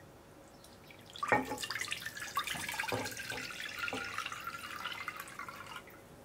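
Water poured from a glass measuring cup into a pot already holding liquid, a steady splashing stream that starts about a second in and stops shortly before the end.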